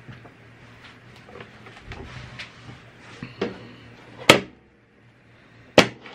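A hard plastic carrying case being handled and shut: light rubbing and knocks, then a sharp plastic clack about four seconds in as the lid comes down, and a second clack about a second and a half later as the case is pressed closed.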